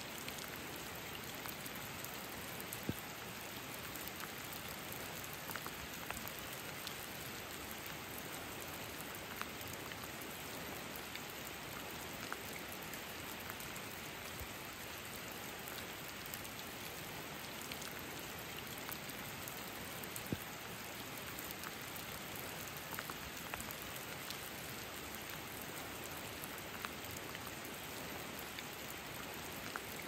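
Steady rain falling in a conifer rainforest: an even hiss with scattered louder drops striking close by, the sharpest about three seconds in and again about two-thirds of the way through.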